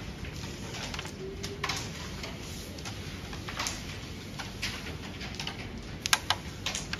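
Light clicks of a carrom striker being shifted and tapped on the board, then the striker flicked about six seconds in: a quick run of sharp clacks as it strikes a carrom coin, the loudest sounds here.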